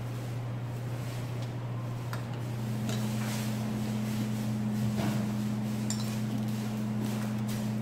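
A few light clinks of chopsticks, a spoon and ceramic bowls being handled at the table, over a steady low hum.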